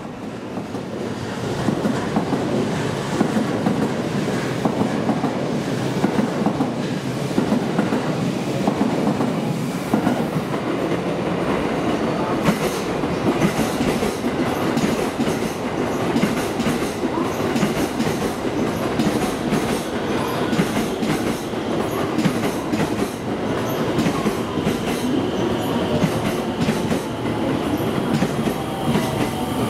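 JR West 223 series electric train running into a station platform, a steady rumble of wheels on rails with clicking over rail joints and points, the clicks coming thick from about halfway through.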